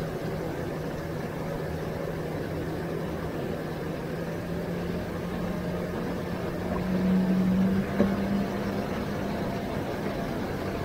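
Bass boat's outboard motor running at speed, a steady hum over the rush of wind and water, rising slightly in pitch and getting louder about six to eight seconds in. A single sharp knock about eight seconds in.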